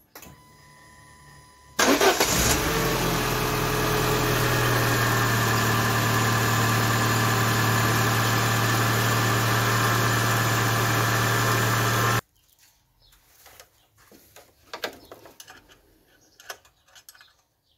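Peugeot 206 car engine cranked and started about two seconds in, then running at a steady idle for about ten seconds before stopping abruptly. A few faint clicks and handling noises follow.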